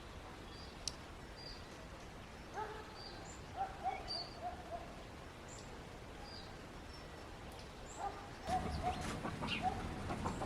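Small birds chirping on and off, with chickens clucking in short runs of repeated notes: once a few seconds in and again near the end.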